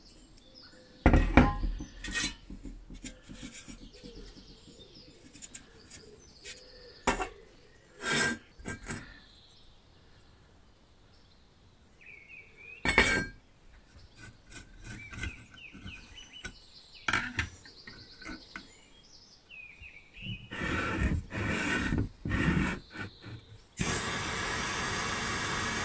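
Rusty steel stove parts handled by hand, with sharp knocks, clinks and scraping as they are turned over and set down. Near the end a blowtorch flame starts and hisses steadily on the rusty stove.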